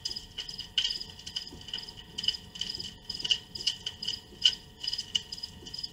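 Crickets chirping, short high chirps repeating steadily.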